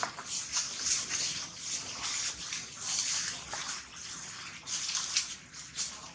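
Continuous crackly rustling and crinkling, many small crackles close together, from macaques handling a thin plastic bag and shifting on dry leaf litter.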